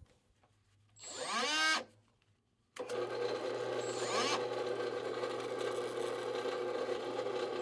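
An electric power-tool motor spins up briefly about a second in and stops. Just before the three-second mark it starts again and runs steadily with a low hum.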